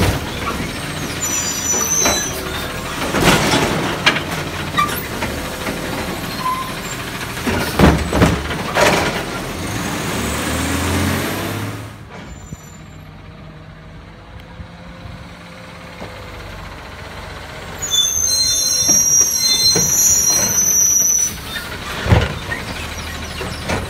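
Side-loading garbage truck, a 2018 Peterbilt 520 with a Labrie Automizer body, working at the curb: the engine runs under the hydraulic arm with several knocks and clanks. Later it is quieter and farther off, then high-pitched brake squeals sound for about three seconds as the truck pulls up, followed by a loud thump.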